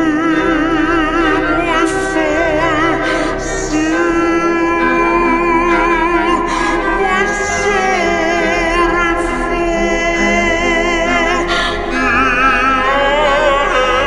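Background music: sung vocals with a strong vibrato over a steady accompaniment.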